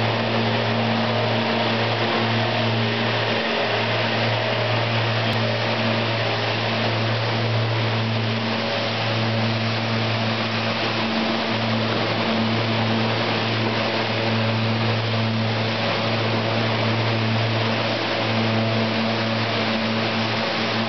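Rotem Silverliner V electric multiple-unit train moving slowly past at close range as it departs, with a steady low electrical hum and a second, higher hum over a constant rushing noise.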